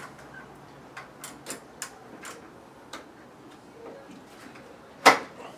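Light clicks and taps of a razor blade working under a sliding screen door's spring-loaded roller wheel at the frame's bottom corner, then one sharp, loud click about five seconds in as the roller snaps up over the track and seats on it.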